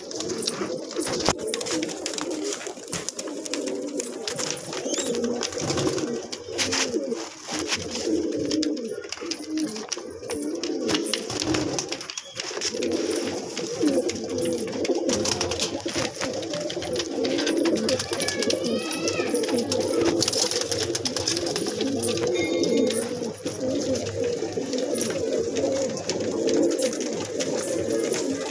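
A flock of domestic highflyer pigeons cooing continuously, many birds overlapping, with scattered sharp clicks. There is a brief higher squeaky call about two-thirds of the way through.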